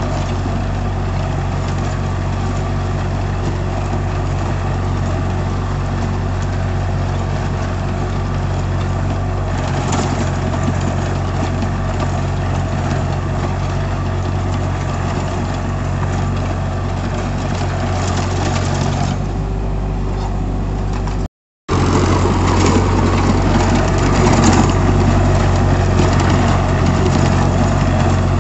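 Sonalika DI 32 RX tractor's diesel engine running steadily under load while its rear rotavator churns through soil. The sound cuts out for a moment about three-quarters of the way through, then comes back a little louder.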